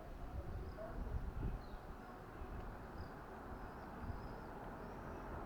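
Outdoor ambience: faint short bird chirps over a steady background hiss and an uneven low rumble.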